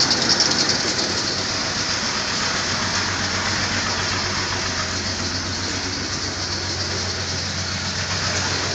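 Dodge pickup truck's engine idling steadily, with an even hiss over a low, steady hum.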